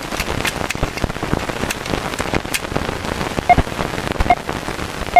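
Rain sound effect in a song's intro: a steady hiss of rain with scattered drop-like clicks. A soft, short note sounds three times in the second half.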